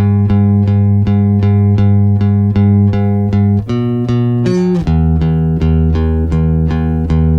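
Background music: quick plucked notes repeating about four times a second over a held bass, moving to a new chord a little under five seconds in.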